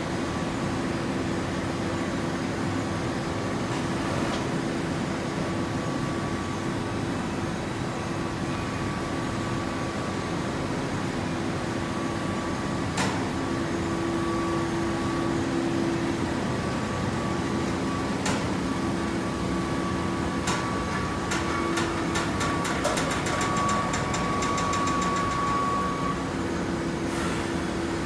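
A hydraulic horizontal fibre baler and its feed conveyor running: a steady machine hum with a constant tone. A couple of sharp clicks come in the middle, and a run of ticks quickens toward the end.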